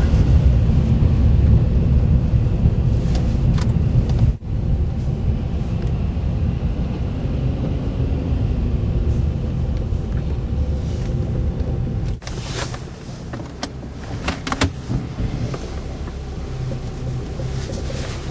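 Car driving at low speed, heard from inside the cabin: a steady low engine and road rumble, with a few short knocks and rattles in the second half. The sound cuts out briefly twice, about four and twelve seconds in.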